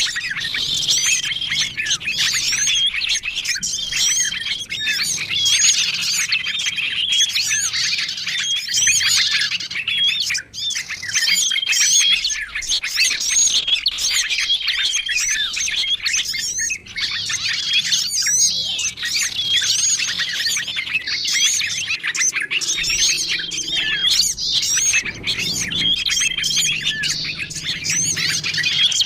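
A dense chorus of small songbirds chirping and calling over one another, a bird-luring recording that mixes many small species. Quick rising and falling chirps run without pause, and a short level whistle recurs every couple of seconds.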